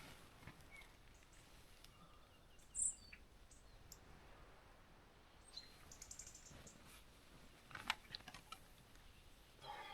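Near silence, broken by a few faint clicks and a couple of brief high chirps.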